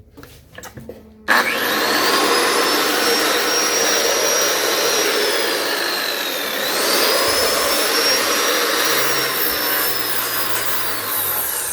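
An old corded power tool's electric motor on a test run: it switches on about a second in and spins up with a rising whine, slows briefly near the middle, spins back up, then winds down at the end.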